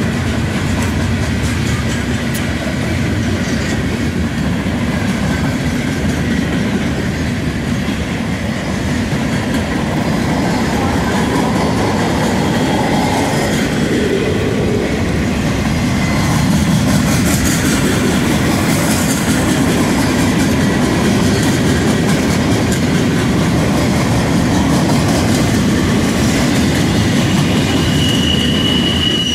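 Norfolk Southern freight cars rolling past at speed, close by: a steady rumble with the clatter of steel wheels over the rails.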